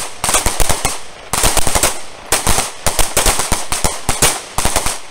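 A line of shooters firing pistols at the same time: many overlapping gunshots, several a second in an irregular stream, with two brief lulls.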